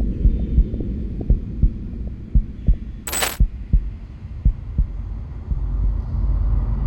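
Produced sound-effect audio: irregular low thuds over a deep hum, with one brief bright, hissing hit about three seconds in.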